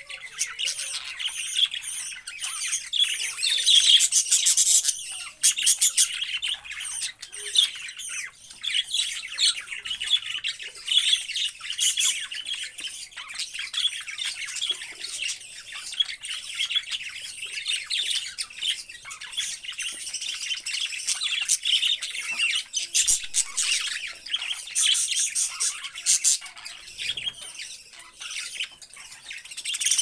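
A flock of budgerigars chattering without a break, warbles and chirps mixed with bursts of rapid clicking.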